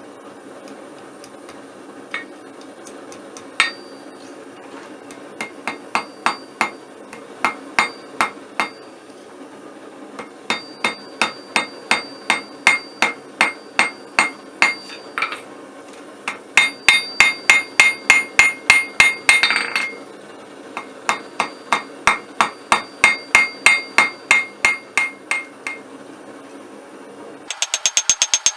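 Hand hammer striking hot mild steel on an anvil in runs of blows, about two a second, each with a short metallic ring, over the steady rush of a gas forge. Near the end the rush stops and faster, brighter-ringing blows follow.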